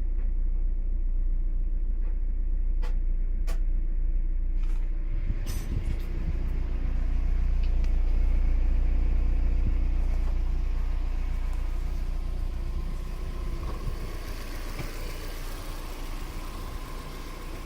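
Mazda MX-5 NB 1.8-litre four-cylinder engine idling steadily and smoothly, running well after a year off the road. A few sharp clicks come in the first few seconds. The engine sound grows louder about five seconds in, then gradually fades.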